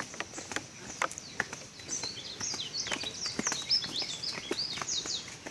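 Footsteps on a path, with a bird singing a quick series of short, down-slurred high chirps from about two seconds in until near the end.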